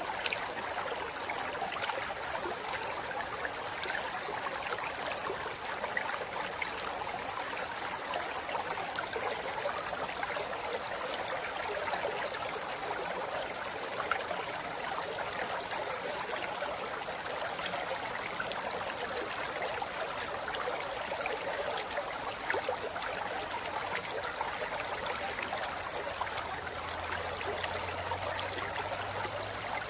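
Steady rushing and babbling of a forest river flowing over rocks, an even continuous water noise with small splashes and gurgles throughout.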